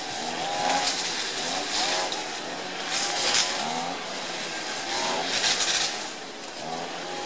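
Forest ambience: a steady high insect drone that swells and fades every second or two, with short, repeated pitched calls through it.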